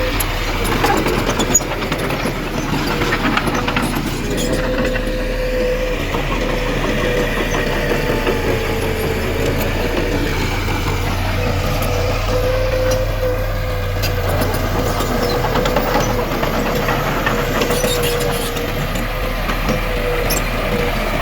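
Heavy diesel earthmoving machinery running steadily under load, with a constant low hum and a held whine.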